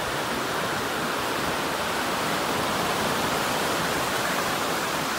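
Ocean surf breaking and washing up the sand: a steady rushing that swells and eases slightly.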